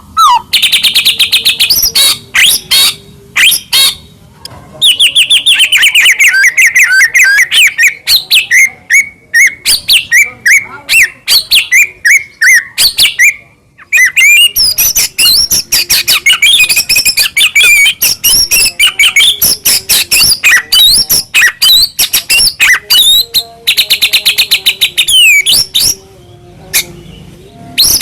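White-rumped shama singing a long, varied song of rapid repeated notes, trills and sweeping whistles, with a short pause about halfway through.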